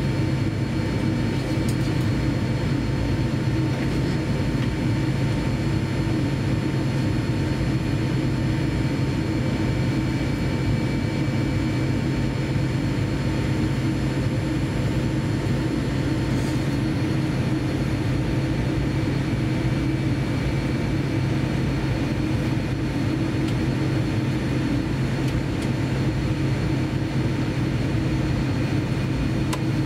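Steady cabin noise inside a Boeing 787-9 as it taxis. It is an even low hum from the engines and air system, with a few thin steady whines above it and no change throughout.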